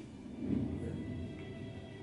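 Television programme soundtrack playing at low volume: a low rumble that swells about half a second in, under faint held tones.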